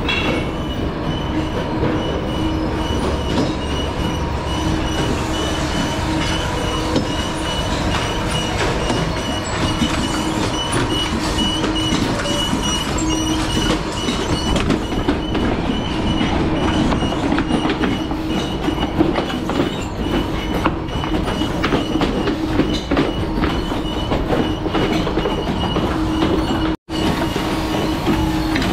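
Shoe-factory machinery and assembly-line conveyors running: a steady mechanical hum with continual clattering and ticking. The sound drops out for a moment near the end.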